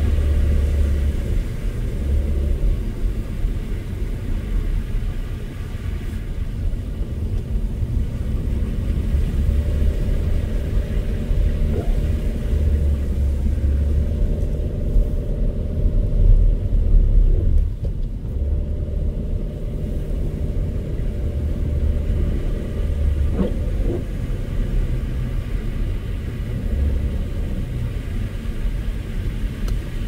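A car driving on a snow-covered road: a steady low rumble of engine and tyres, with a faint knock or two along the way.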